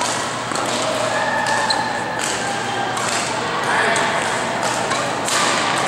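Badminton rally: sharp racket strikes on the shuttlecock at irregular intervals, with footsteps on the court, over people talking in the background.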